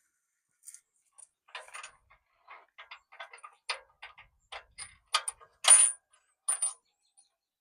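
Irregular metal clicks and clinks of bolts and mounting hardware being handled and fitted while a steel bumper is bolted onto a truck frame, loudest about two-thirds of the way in.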